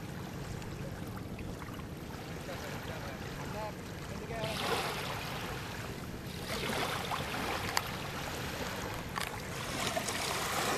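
Water noise from a fishing boat on a river, over a steady low hum. There are two louder stretches of rushing, splashing water about halfway through, a sharp knock near the end, and faint voices in the background.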